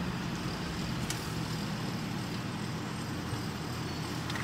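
Steady low hum of a stationary car heard from inside the cabin, with one faint tick about a second in.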